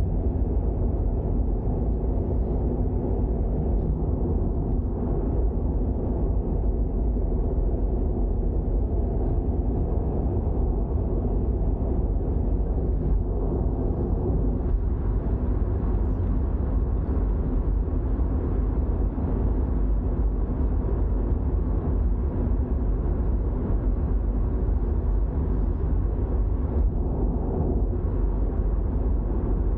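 Toyota GR86 driving at a steady pace: a continuous low rumble of its 2.4-litre flat-four engine and road noise, with no revving or gear changes standing out.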